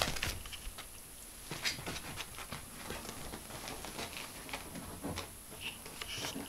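Ferret scrabbling and rustling on upholstered sofa cushions: scattered soft scuffs and taps, with a sharper knock right at the start and another about a second and a half in.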